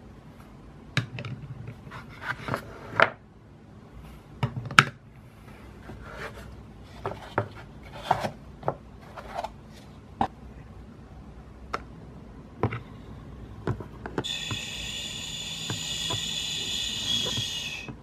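Light clicks and knocks of plastic toy eggs being handled and set down in a plastic toy frying pan. Near the end comes a steady high-pitched buzzing that lasts about three seconds.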